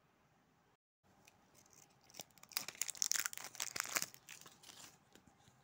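Plastic film wrapping being torn and crinkled off a mystery toy capsule by hand, starting about a second in and busiest in the middle.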